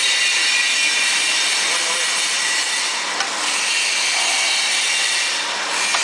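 Automatic washing-filling-capping machine for plastic water bottles running: a steady, loud hiss with a light click a little past three seconds in.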